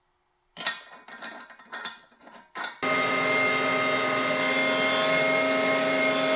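A few short metal knocks and clatters as the grinder head is handled, then about three seconds in an electric meat grinder's motor switches on and runs steadily with a hum, grinding brisket trimmings through the smaller die on the second pass.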